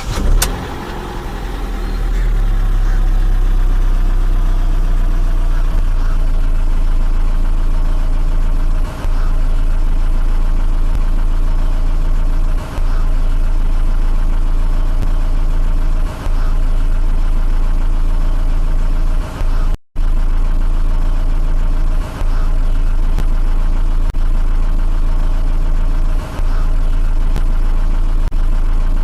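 Car engine starting, its revs falling over the first few seconds and settling to a steady low idle. The sound cuts out for a moment about twenty seconds in.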